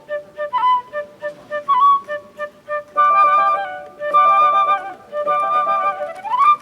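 Flutes playing a birdsong-inspired classical piece: short repeated staccato notes and quick upward-flicking chirp figures, fuller passages from about halfway, and a fast rising run near the end.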